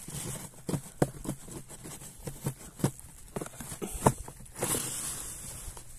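Handling noise from an old wooden beehive and its papery wasp nest: a run of irregular light clicks and knocks, with a brief rustle about three-quarters of the way through.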